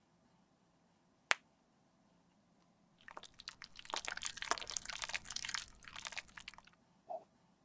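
A single sharp click about a second in, then thick aloe vera gel pouring from a squeeze bottle into a plastic roll-on bottle: a dense, crackly, bubbly squelch lasting about four seconds, with a small wet pop near the end.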